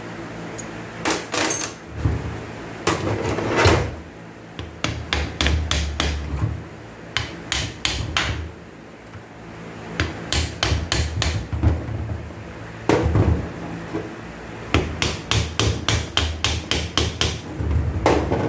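Hammer blows struck in quick runs of several a second, with short pauses between, over a faint steady low hum.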